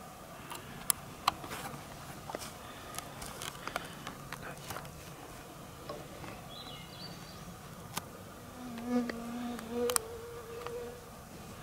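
Flying insects buzzing, with one buzzing close for about two seconds near the end, its pitch jumping higher partway through. Scattered sharp clicks and small snaps run throughout.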